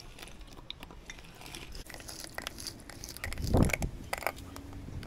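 Lemon halves being twisted and pressed on a plastic hand reamer juicer: wet crunching and crackling with many small clicks. There is a louder thump about three and a half seconds in.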